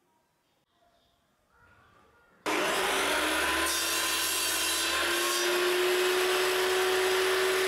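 Near silence, then about two and a half seconds in a benchtop table saw starts abruptly at full loudness. Its motor whines steadily, rising slightly in pitch, as the blade cuts through a pallet board.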